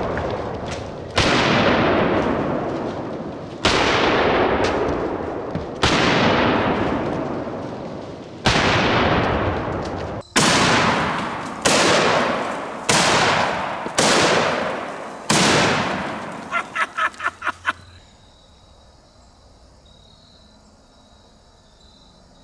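Big-bore Smith & Wesson magnum revolver shots, each a sharp crack trailing off in a long echo. Four come a few seconds apart, then five in quicker succession about a second apart. A quick run of faint ticks follows, then a quiet stretch with a thin steady high tone.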